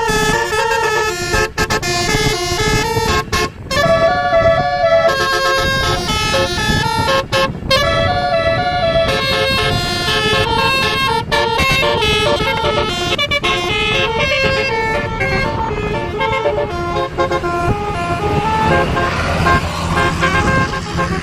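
Tourist bus's multi-tone telolet horn playing a tune in quick stepped notes, loud, with vehicle rumble underneath.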